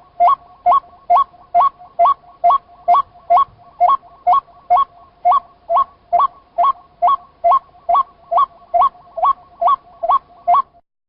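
White-breasted waterhen (chim cuốc) call: a fast, very even series of short upward-sliding notes, about two and a half a second, that stops abruptly near the end.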